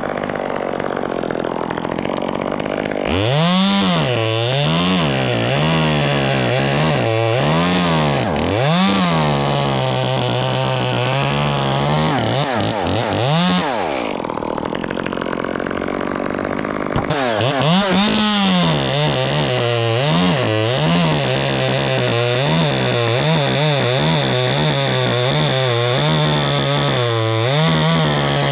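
Chainsaw running and cutting beech wood, revving up and down and then holding a steady lower note; it eases off about fourteen seconds in and comes back strongly three seconds later.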